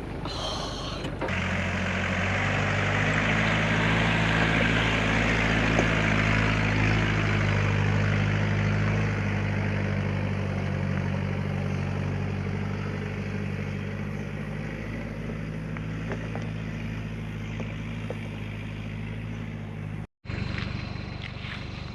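4x4 engine running at a steady speed while driving a rough off-road trail, with a rushing noise over it. The sound cuts out for a moment near the end and then resumes.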